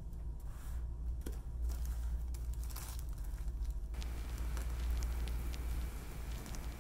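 Scissors snipping through a plastic poly mailer, the thin plastic crinkling and rustling as it is cut and handled. The snipping gets busier from about four seconds in.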